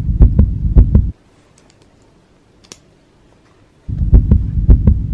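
Heartbeat heard through a stethoscope, beating about three times a second. It cuts out suddenly about a second in and comes back near the end.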